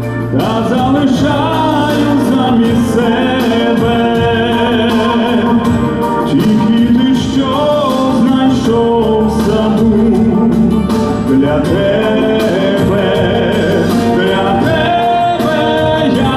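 A man singing a Ukrainian pop ballad live into a handheld microphone, in long sustained phrases over instrumental accompaniment.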